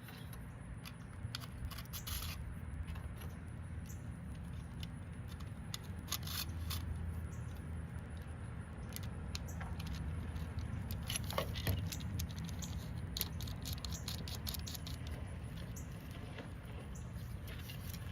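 Knife blade drawn along a 1000-grit sharpening rod: light, uneven metal-on-abrasive scraping strokes at the blade's fine-honing stage, over a steady low hum.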